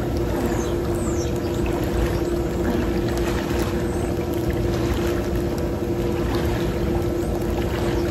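Water sloshing and light splashing from a swimmer's strokes through a pool, over a steady machine hum.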